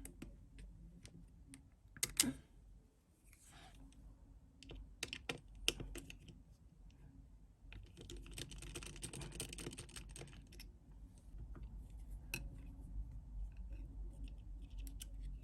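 Faint, scattered clicks and taps of small repair tools on an iPhone 7's internals as the connector cover is taken off and the battery disconnected, with a scratchy rustle for a couple of seconds past the middle.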